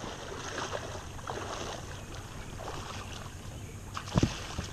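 Water splashing and sloshing as a person wades through shallow lake water beside an inflatable unicorn pool float. A heavy thump comes near the end as he climbs onto the vinyl float.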